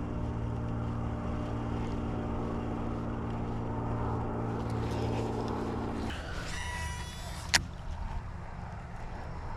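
A motor hums steadily, then cuts out about six seconds in. A short whirring follows, ending in one sharp click.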